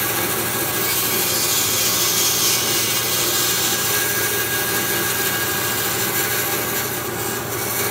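Bandsaw running with its blade cutting through the solid rubber tread of a finish-mower wheel, a steady saw noise over the motor's hum. The wheel is being profiled, its chipped-out rubber trimmed away.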